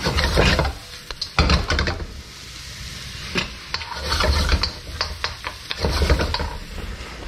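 Wooden spoon stirring onions and spices frying in a wok: several scraping strokes, about one every second and a half, over a steady sizzle.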